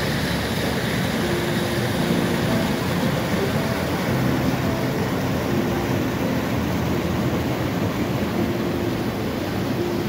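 River water rushing and churning over rocks in rapids: a steady, loud rush with no breaks.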